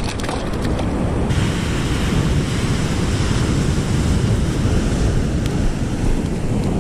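Wind buffeting the microphone over the steady wash of breaking ocean surf.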